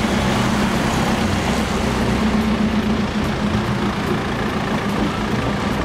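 Vintage car's engine running steadily at low revs as it drives slowly past.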